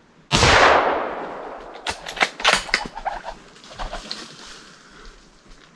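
A single rifle shot about a third of a second in, its sound trailing off through the bush over a second or so, followed by a quick run of sharp clicks.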